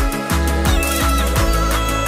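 Electronic background music with a steady beat of deep, pitch-dropping bass hits.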